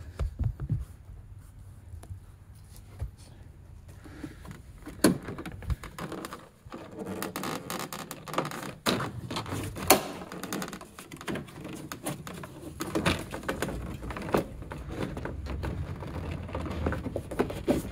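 Plastic body trim panel on a Ford Bronco's rear corner being pulled and wiggled by hand to free its clips: scattered clicks and knocks of the plastic throughout.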